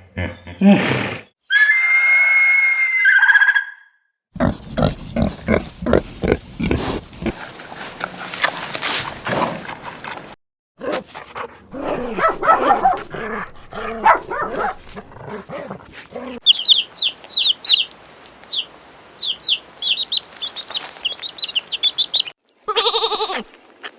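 A succession of separate animal calls, cut one after another: a drawn-out pitched call, a long run of quick rhythmic grunts, then a stretch of rapid high chirps, and a short bleating call near the end.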